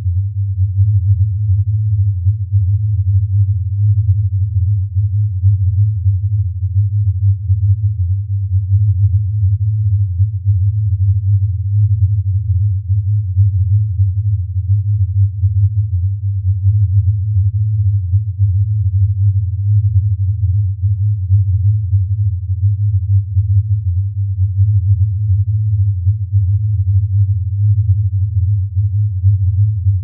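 Low, steady electronic hum wavering quickly in loudness: a data sonification, the 'sound' of the black sphalerite (zinc sulfide) mineral stone.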